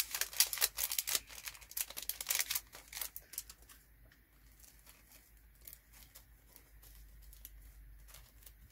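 A small thin plastic bag crinkling and rustling in the hands for about three seconds while resin diamond-painting drills are transferred into a zip-lock bag. After that come fainter, scattered rustles and light ticks.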